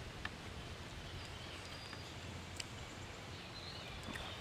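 Quiet outdoor background with faint bird chirps near the end and a couple of soft clicks.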